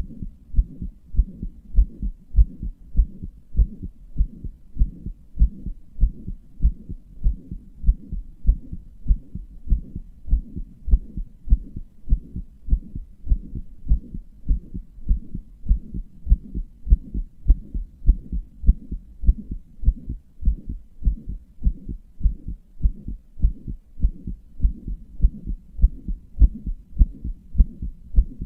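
A human heartbeat heard close up: a steady, even rhythm of low thumps. The owner describes the heart as weak and murmuring.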